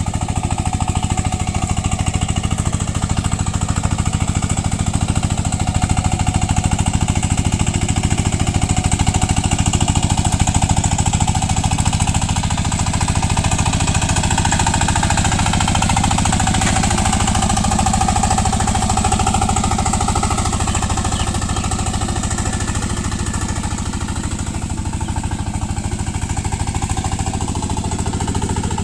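VST power tiller's single-cylinder diesel engine running steadily under load, its rapid chugging pulses unbroken while it churns through paddy mud.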